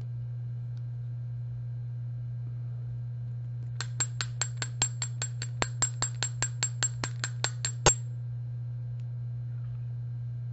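Metal fly-tying hair stacker tapped down repeatedly, about twenty sharp clicks at around five a second, the last the loudest, to even the tips of a pinch of elk hair. The clicks start about four seconds in and stop about eight seconds in, over a steady low hum.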